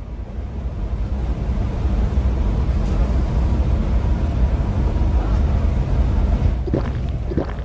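Truck engine running as the truck drives along, a low steady rumble that fades in over the first second or two.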